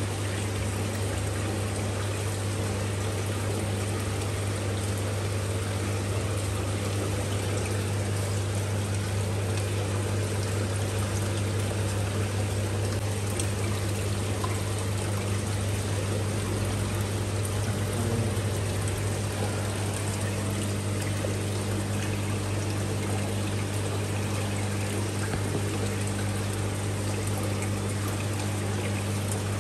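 Aquarium water trickling and splashing steadily, over a steady low hum from the tank's pump.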